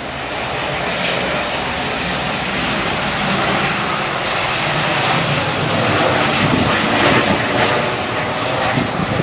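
Boeing 737 airliner on final approach and flare, its jet engines making a steady rushing noise that grows a little louder as it passes low overhead, with a high whine falling in pitch near the end.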